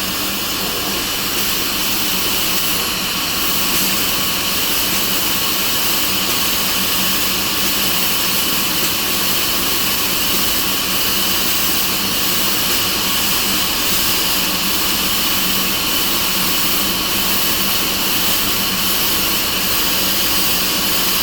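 Laser tube-cutting machine running: a steady, loud hiss with a constant high whine and a low hum underneath.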